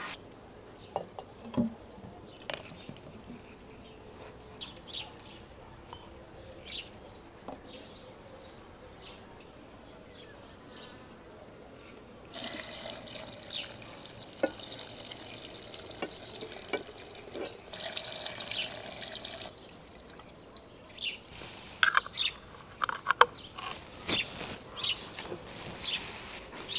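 Clear liquid poured from a glass jug into glass jars packed with cherries and sugar, a steady pour of about seven seconds starting about twelve seconds in. Before it, birds chirp among scattered light clicks; after it, glass jars knock and clink several times as they are handled.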